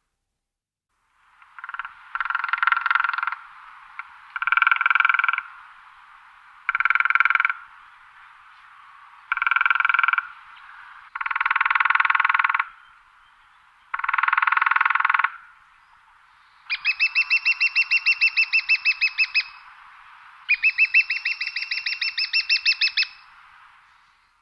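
A woodpecker drumming its beak on wood in a string of eight drum rolls, one every two to three seconds. The last two rolls are longer, about three seconds each, and the separate rapid strikes can be heard in them.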